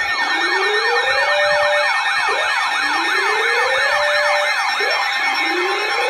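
Emergency sirens sounding together: a fast yelp sweeping up and down about four times a second over a slower wail that rises for about a second, holds, and comes round again every couple of seconds.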